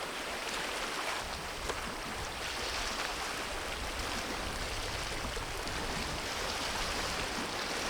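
Sea water washing against the shore: a steady rushing wash of small waves.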